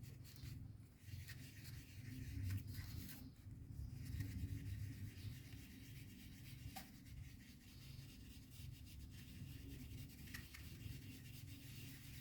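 A stencilling brush rubbed round in small circles on card as ink is blended in: a faint, continuous brushing that swells and fades unevenly.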